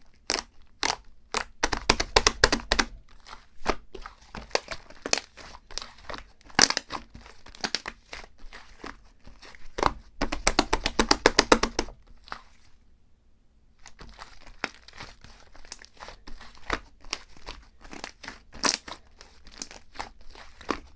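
Plastic wrapping and paper being handled, crinkling, with two spells of rapid tearing crackle, about two seconds in and again around ten seconds in. There is a brief lull after the second spell.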